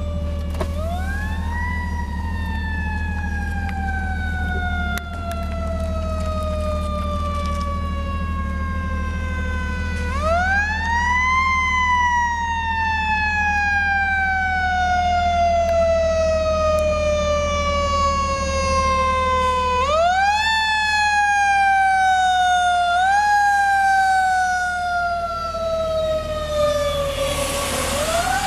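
Fire engine siren wailing, each cycle rising quickly in pitch and then sliding slowly down for several seconds before it is wound up again, about every ten seconds, with a short extra rise near the end, over a steady low engine hum. A rushing noise comes just before the end as the fire engine passes on the wet road.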